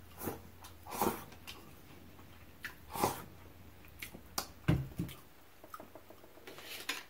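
Close-miked eating sounds: a person slurping food from a bowl held to the mouth and chewing, with short wet mouth noises and a few sharp clicks, about one every second or so.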